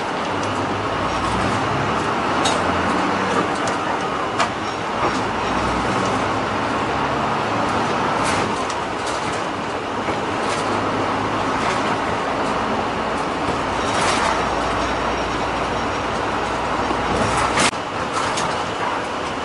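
Route bus engine running with road noise inside the passenger cabin; the engine note steps up and down a few times, and occasional sharp rattles and clicks come from the bus fittings, the sharpest near the end.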